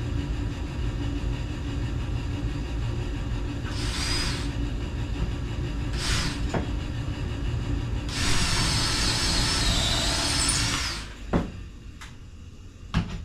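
A steady low mechanical hum with bursts of hissing: two short ones, then a longer one of about three seconds. Two sharp knocks come near the end, as the hum falls away.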